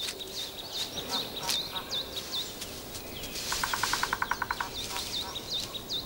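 Small birds chirping: short high chirps repeat throughout, and a rapid trill of about a dozen notes lasts about a second near the middle.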